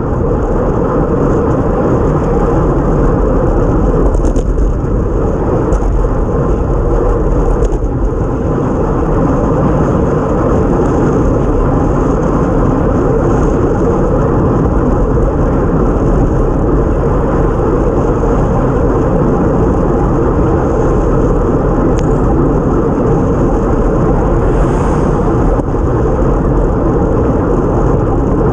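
Steady loud wind rush and wet road noise picked up by an action camera riding on a time-trial cycle at race speed in the rain.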